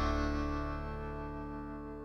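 Background music: a sustained guitar chord ringing out and slowly fading away.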